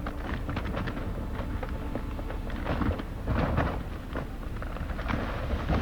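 Avalanche heard close by: a steady low rumble with irregular crackles and knocks running through it.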